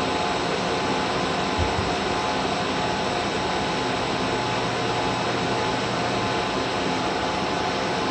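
Steady whir of server-room machinery, cooling fans and air handling running continuously, with a few faint steady tones through it. A brief low thump about one and a half seconds in.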